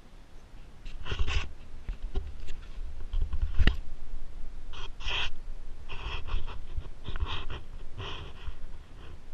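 Two-week-old Siberian Husky puppies making short snuffles and squeaks, about half a dozen from about a second in, as they squirm and are handled on a quilt. A single sharp tap a little past the middle is the loudest sound.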